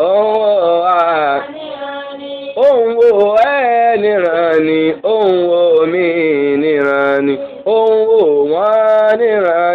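A man singing a Yoruba Islamic devotional refrain unaccompanied, in long drawn-out phrases with wavering, ornamented held notes. It goes softer for about a second, starting about one and a half seconds in.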